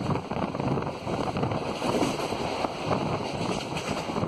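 Wind rushing past the open door of a moving passenger train coach and buffeting the microphone, over the running noise of the coach on the track.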